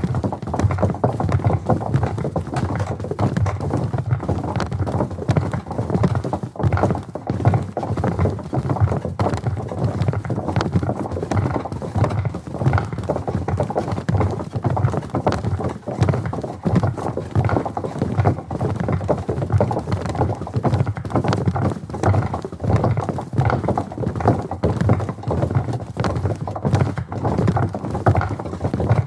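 Footsteps of a large group of soldiers crossing a wooden bridge, close up: a dense, unbroken stream of overlapping footfalls knocking on the wooden planks.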